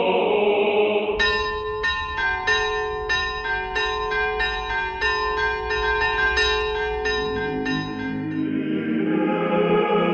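Church bells ringing a quick peal of several bells of different pitches, about three strikes a second with each stroke ringing on. It starts about a second in and stops near the end, with choir singing before and after.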